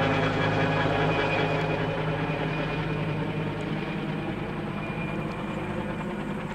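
Two-bladed firefighting helicopter with a water bucket slung on a long line, flying overhead and away; its steady rotor and engine sound slowly fades.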